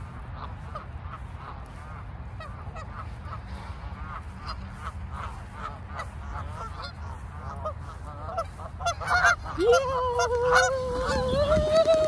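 Flock of Canada geese honking, short calls at first and then a dense chorus of honks as the birds start to take flight near the end. Over the last couple of seconds a person's long drawn-out call carries across the honking.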